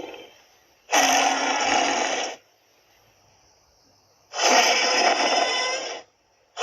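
Two Tyrannosaurus rex roar sound effects, each starting suddenly and lasting about a second and a half, with a pause of about two seconds between them; the tail of an earlier roar fades out at the start.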